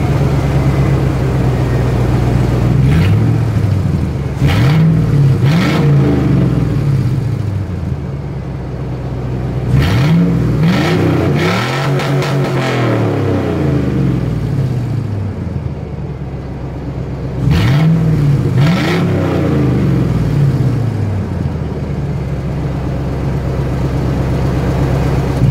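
1999 Chevy Silverado 1500 engine running with its muffler removed and the catalytic converters still in place, idling and revved up and back down in three bursts. The exhaust also has a leak at the manifold.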